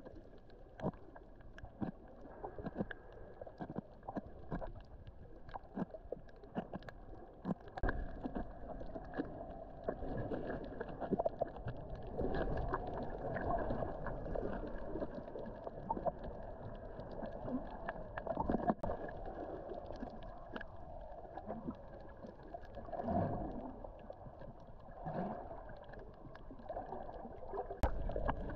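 Water splashing and gurgling, with many small irregular clicks.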